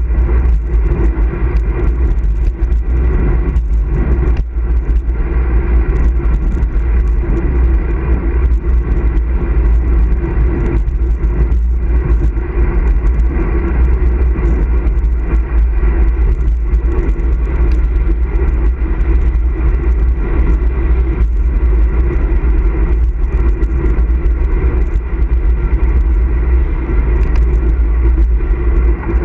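Steady low wind rumble on the handlebar-mounted camera's microphone as a road bike rolls along asphalt, with a constant hum of tyre and drivetrain noise underneath.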